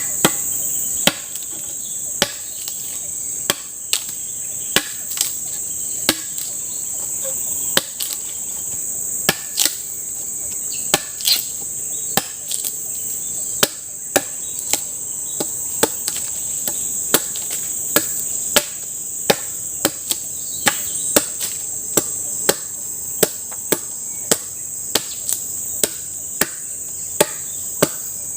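Repeated sharp blows of a tool on wood, roughly one a second at a working pace, as in chopping or hammering while building a shelter. Behind them runs a constant high-pitched drone of forest insects.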